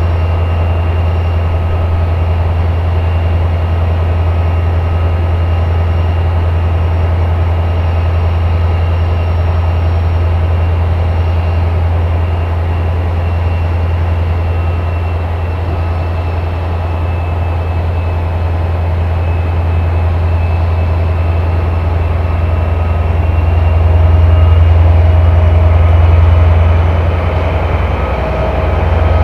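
SNCF CC 72100-class diesel locomotive's SEMT Pielstick V12 engine running with a deep steady hum, growing louder for a few seconds about two-thirds of the way through.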